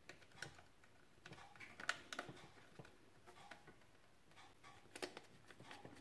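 Faint scattered clicks and taps of hard plastic parts being handled and fitted as a hair dryer's casing is put back together, with a screwdriver at work in its back end.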